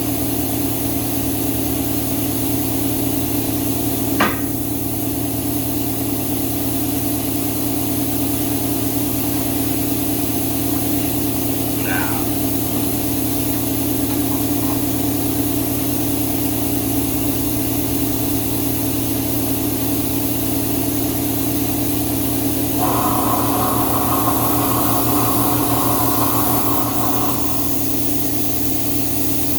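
Steady hum of a running motor, with one sharp metallic clank about four seconds in. A higher-pitched sound joins the hum for about four seconds near the end.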